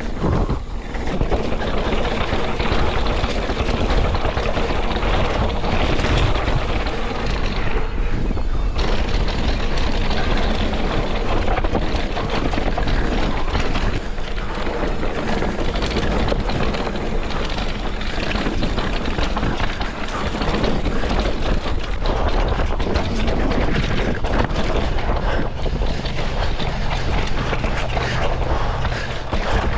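Scott Ransom full-suspension mountain bike ridden fast down dry dirt singletrack: tyres rolling and crunching over dirt and rock, the bike rattling and knocking over bumps, and steady wind rushing over the action-camera microphone.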